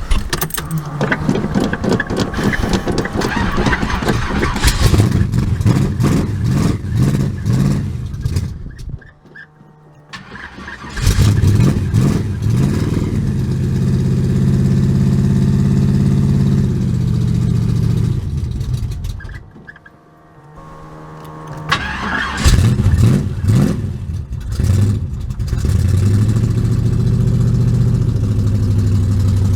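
Carbureted car engine cranking and catching with the throttle being pumped. It runs rough and dies about nine seconds in, restarts and runs steadily, dies again near the twenty-second mark, then restarts and, after a few rough seconds, settles into a steady idle. This is a hard-starting engine being kept alive on the gas pedal.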